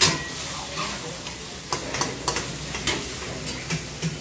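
Metal ladles scraping and clanking against karahi woks as chicken karahi is stirred, over steady sizzling from the hot pans. A sharp clank comes right at the start, then irregular scrapes every few tenths of a second.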